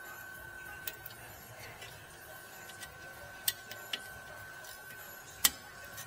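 A few sharp clicks and taps from a car's front brake caliper being handled, the loudest one near the end, over a faint steady high tone.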